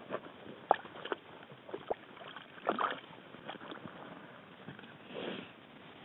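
Scattered light knocks and clicks with short bouts of rustling as ice-fishing gear and clothing are handled, with a longer soft rustle near the end.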